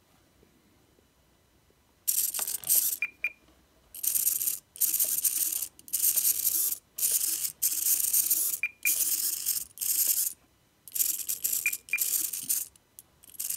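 Small RC airplane servo buzzing and chattering in repeated bursts of about half a second to a second, starting about two seconds in. The servo is glitching, vibrating erratically because it is being driven at an 11 ms frame rate, which the owner cured by setting it to 22 ms.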